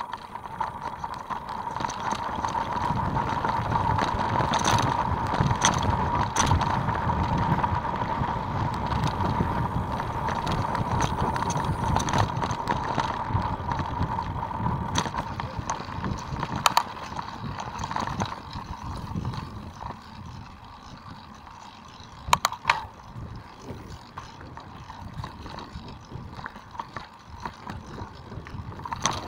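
Mountain bike rolling fast down a dirt trail: the tyres rumble and rattle over the rough ground, with a steady high buzz and a few sharp knocks. It eases off and turns quieter about two-thirds of the way through.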